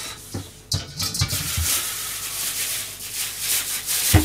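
Thin plastic bag crinkling and rustling as a daikon radish is taken out of it, with a sharp thump near the end.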